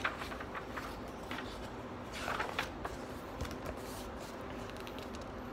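Pages of a picture book being opened and turned by hand: soft paper rustles and light handling clicks, busiest about two seconds in.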